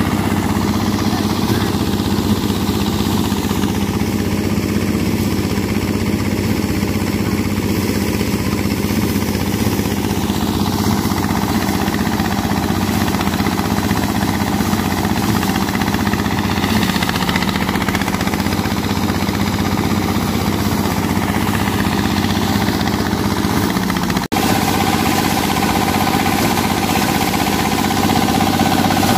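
Small single-cylinder diesel engine running steadily under load, driving a rice threshing machine as sheaves are fed into its drum. The sound breaks off for a split second about three-quarters of the way through, then carries on with a steady higher whir added.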